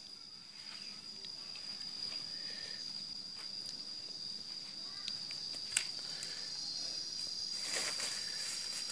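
A steady, high-pitched insect trill, held on one tone, with a few faint taps and rustles and one sharp tick a little past halfway.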